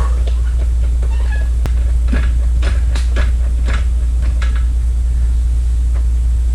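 Light clicks and knocks of hand tools on car parts, a scatter of them mostly between two and four and a half seconds in, some with a brief ringing tone, over a loud steady low hum.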